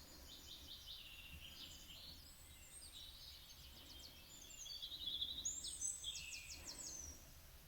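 Faint birdsong: small songbirds chirping and giving quick high trills, busier about five seconds in.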